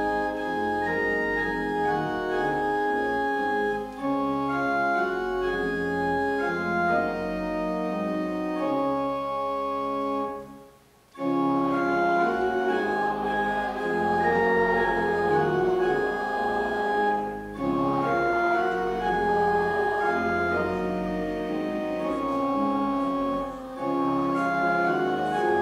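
Church organ playing the postlude after the dismissal: sustained full chords that change in steady succession. The music breaks off briefly about ten seconds in, then resumes.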